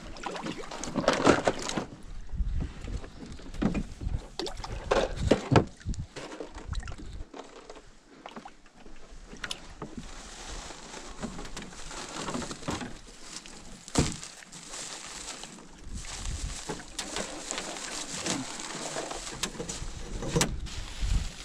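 Scattered knocks and clatter of handling in a fishing boat, with water sloshing against the hull.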